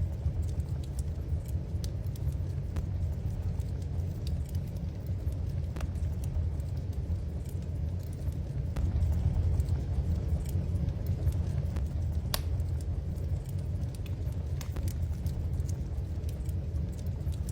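Wood fire burning in a fireplace: a steady low rumble with scattered sharp crackles and pops, one clearer pop about twelve seconds in.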